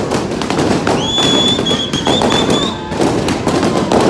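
Balloons popping in quick, irregular succession over crowd noise. A shrill whistle is held for about two seconds, starting about a second in.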